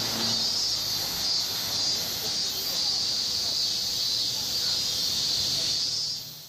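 Cicadas droning in the trees, a dense, steady, high-pitched buzz that fades out near the end.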